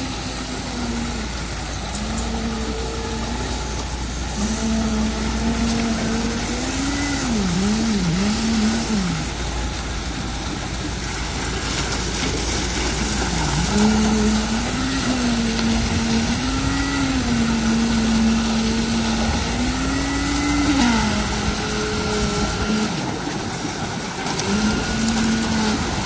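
Concrete poker vibrator running in a fresh slab pour, a steady motor hum whose pitch dips and wavers several times as the head is worked through the wet concrete, over constant site machinery noise.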